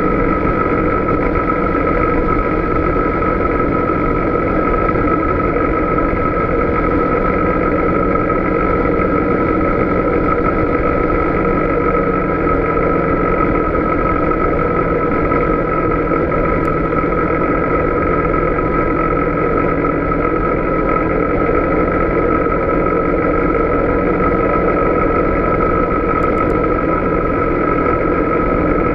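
Polaris Sportsman 570 ATV's single-cylinder engine running at a steady cruise, heard from on board, with a steady whine over the engine noise.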